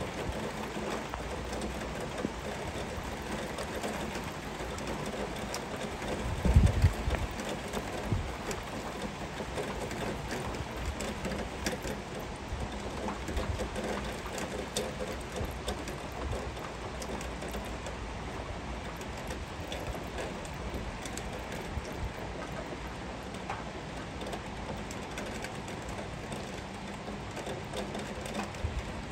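Heavy rain falling steadily, an even hiss with scattered close drops ticking on a nearby surface and a low steady rumble underneath. A brief low thump stands out about six and a half seconds in.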